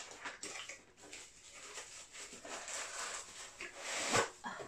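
Cardboard box and plastic packaging rustling and crinkling in the hands as it is worked open, in irregular scrapes with a louder one about four seconds in.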